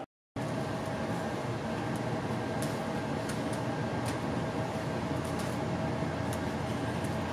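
Steady machine-like hum and hiss with a constant mid-pitched whine. It cuts out briefly just after the start.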